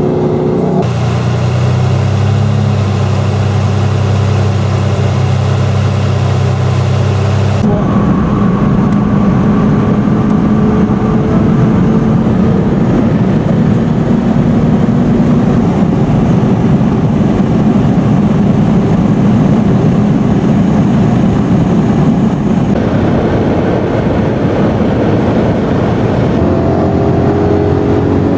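Lamborghini V12 engine heard from inside the cabin at motorway speed, a steady engine note over road and wind noise. The note changes abruptly about a second in, near 8 s, near 23 s and near 26 s as the sound switches between cars.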